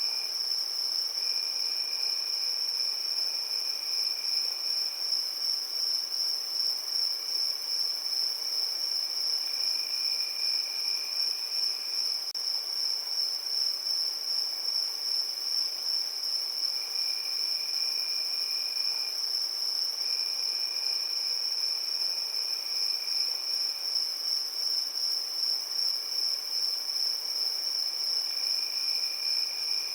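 Crickets chirping in a steady chorus: a continuous high trill, with a lower, fainter trill that starts and stops every few seconds.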